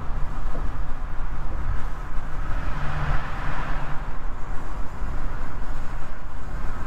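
Steady road noise and engine hum of a vehicle cruising on a multi-lane expressway, briefly louder about three seconds in.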